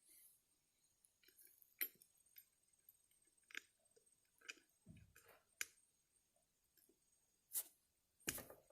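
Faint, scattered clicks and taps of a small screwdriver and tiny butterfly screws being fitted into a John Deere 60 carburetor's throttle shaft, about half a dozen separate clicks, with a dull knock about five seconds in.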